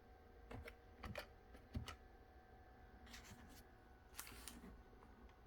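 Faint, scattered clicks of typing on a computer keyboard, a few keystrokes with pauses between them.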